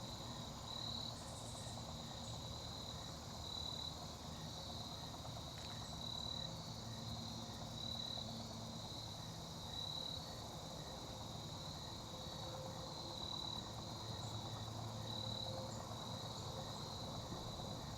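Crickets trilling in a steady, high, faint chorus with a regular pulsing beat.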